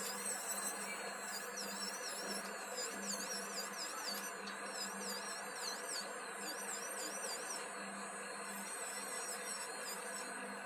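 Electric nail drill running at high speed, a steady whine whose pitch wavers up and down as the metal bit grinds gel polish off a fingernail.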